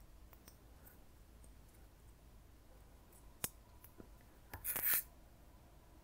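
Small plastic connector handling: a sharp click about three and a half seconds in, then a brief scraping rustle about a second later, as a JST battery lead is pushed into its socket on the LED power adapter board.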